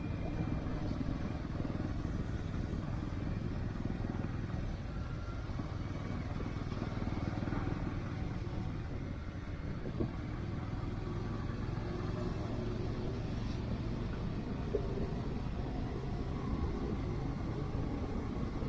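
Motorcycle riding at a steady speed: its engine running evenly under a low, continuous rumble of wind and road noise.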